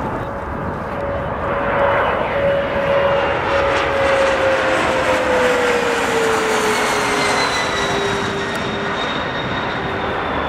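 A Bombardier CRJ regional jet's rear-mounted turbofan engines on landing approach. Their steady whine and rushing noise swell as the jet passes overhead, and the whine falls in pitch about halfway through.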